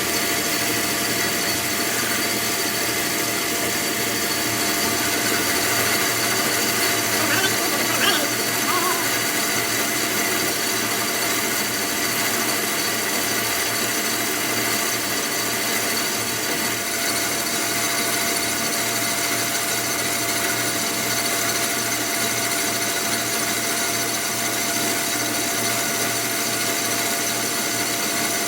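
A power tool running steadily at constant speed, a steady noise with a constant whine that does not change.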